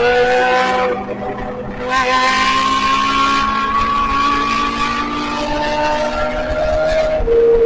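Kawasaki inline-four sport bike engines running at high revs under acceleration. A loud surge about two seconds in is followed by a pitch that climbs slowly for several seconds, and the engine note changes suddenly near the end.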